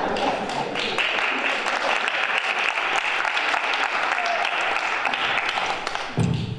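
Audience applauding, swelling about a second in and holding steady, with a short low thump near the end as it dies away.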